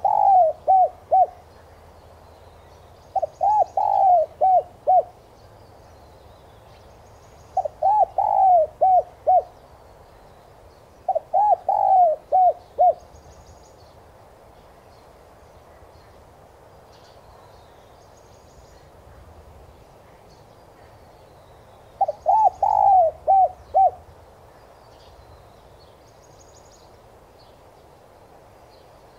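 Spotted dove cooing: five phrases of several quick coos each. The first is already under way at the start, then three follow a few seconds apart, and after a long pause one more comes near the end. Faint chirps of small birds sound in the background.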